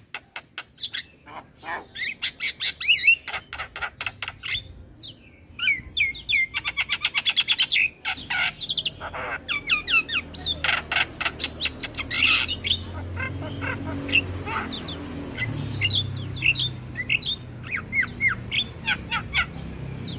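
Javan myna (jalak kebo) singing: a fast run of rapidly repeated harsh chattering notes, then a varied stream of whistles and squawks. A faint low hum sits under the second half.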